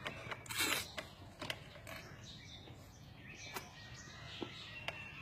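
Quiet yard ambience with faint bird chirps, a few small clicks, and a short breathy rustle about half a second in.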